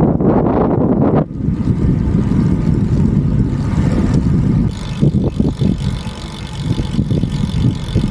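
Wind buffeting the microphone while riding a road bike, a heavy, uneven rumble. About five seconds in a fainter, steady high hiss joins it.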